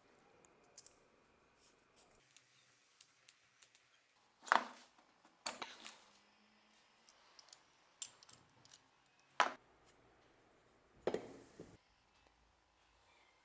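Small metal hand tools and blowtorch burner parts clicking and scraping as they are worked and handled, with about five louder scrapes and knocks in the middle among lighter ticks.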